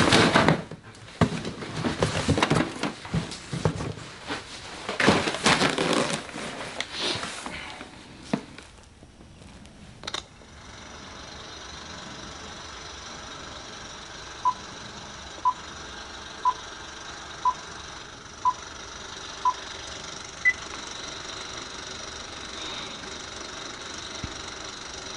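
Loud knocking and clattering noise for the first eight seconds or so, then it goes quiet, with a click about ten seconds in. Over a steady electronic hum, a device beeps six times at one beep a second, then gives one higher beep.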